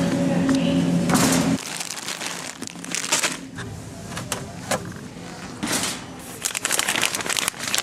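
A steady low hum for about the first second and a half, then scattered clicks and rustling as a plastic dish-soap bottle is handled off a store shelf and set into a wire shopping cart.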